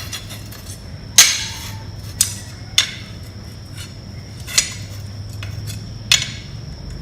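Pieces of cut ceramic tile clinking and knocking against each other and the manual tile cutter as they are handled, five separate sharp clinks with a brief ring, the first the loudest. A steady low hum runs underneath.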